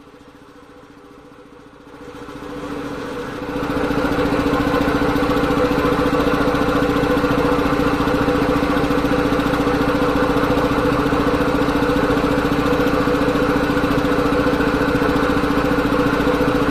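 Two-stage reciprocating air compressor, belt-driven by a three-phase induction motor, running and pumping air into its storage tank. It swells louder over the first few seconds, then runs steadily with a fine, even pulsing from the piston strokes.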